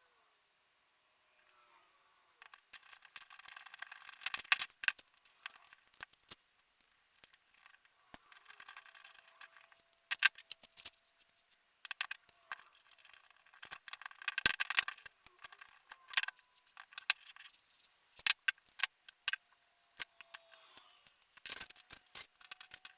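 Small metal hardware clinking and rattling as it is handled, in irregular bursts of sharp clicks and jangles that begin a couple of seconds in.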